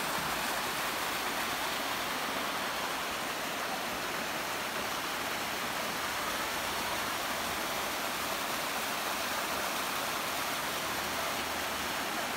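Small waterfall, water rushing and foaming down a sloping bare-rock face: a steady, unbroken rushing noise.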